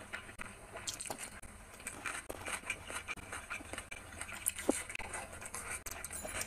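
Close-up eating sounds: fingers squishing and mixing rice with curry on a glass plate, and chewing, heard as irregular small clicks and crackles.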